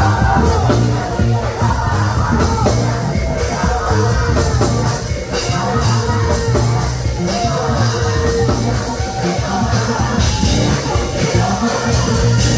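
Gospel youth choir singing together over a loud live band with a steady drum beat and heavy bass.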